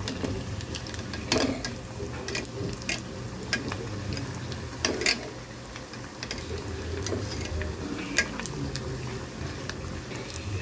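Utensils clinking and scraping against cookware in irregular knocks, two louder ringing clanks about one and a half and five seconds in, over a steady low hum.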